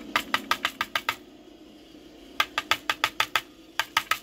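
Rapid light clicking as small brass lock pins are handled and set into a plastic pin tray, in three quick runs of about eight clicks a second.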